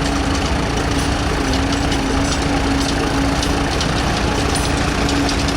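Vintage tractor engine running steadily at idle, a constant low hum.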